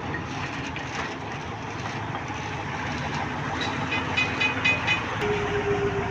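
Heavy dumper truck's diesel engine running steadily. About four seconds in there is a quick series of short high beeps.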